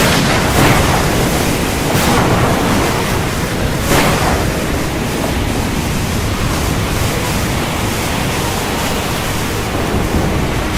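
Heavy rain pouring down in a dense, steady hiss, with a few brief louder surges about half a second, two and four seconds in.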